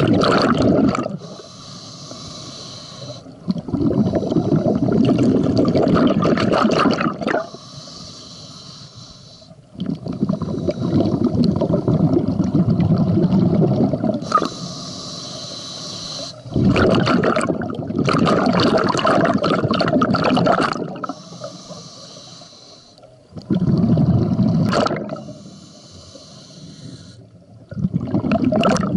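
Scuba diver breathing underwater through a regulator: hissing inhalations alternate with longer, louder bubbling exhalations in a steady rhythm, about one breath every six to seven seconds.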